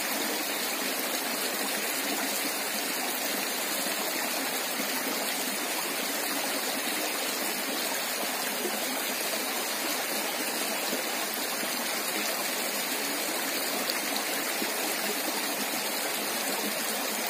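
Shallow rocky stream running steadily, an even rush of water flowing over stones.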